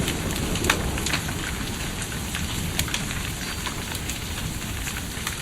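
Hail and rain falling hard, with a steady hiss of rain and many scattered sharp clicks of hailstones striking hard surfaces.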